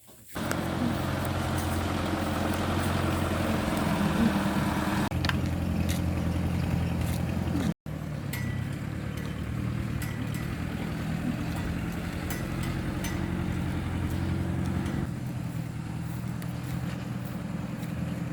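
An engine running steadily at one constant speed, with a short gap about eight seconds in.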